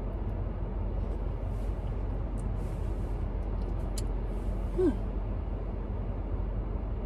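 Steady low rumble of a car's cabin and engine, with a few faint sips from a coffee cup and a brief murmured voice about five seconds in.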